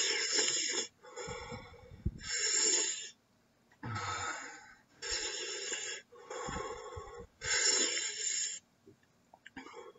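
A man breathing hard in and out through an open mouth, about seven heavy, noisy breaths of roughly a second each, then quieter near the end. It is heavy breathing against the capsaicin burn of superhot chili sauces.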